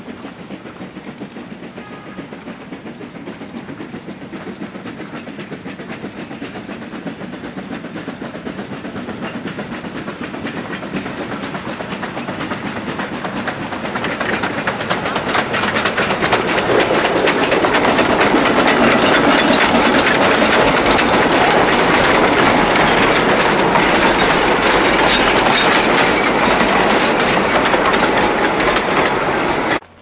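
C2 narrow-gauge steam locomotive approaching with its train and passing close by, its running gear and wagons clattering over the rails. The sound grows steadily louder and is loudest from about eighteen seconds in as the engine goes past.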